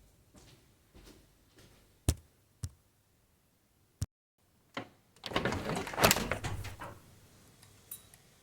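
Door sounds: a few sharp latch-like clicks, then a loud rattling burst lasting about a second and a half, and a final click near the end.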